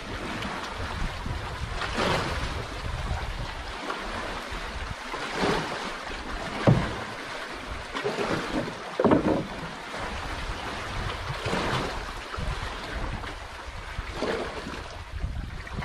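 Sea water sloshing and lapping around a small outrigger canoe, swelling every two to three seconds, with wind rumbling on the microphone.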